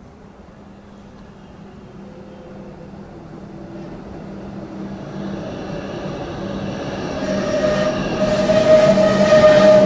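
Comeng electric suburban train pulling into a station platform, growing steadily louder as it approaches. A steady whining tone rides over the wheel and rail noise and strengthens in the last few seconds.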